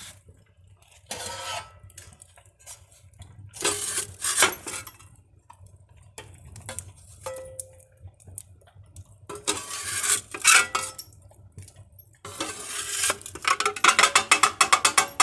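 Dog eating from a food bowl, the dish clattering and scraping in bursts, ending in a fast run of sharp clinks; a grating sound many listeners find like nails on a chalkboard.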